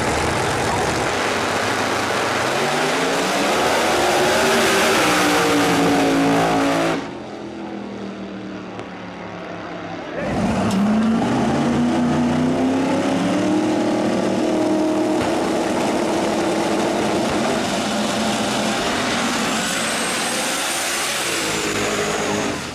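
Drag racing cars launching hard off the line, their loud racing engines climbing in pitch through the gears and pulling away down the track. About seven seconds in the sound drops to a quieter stretch, and about ten seconds in a second pair launches with the same loud, climbing engine note.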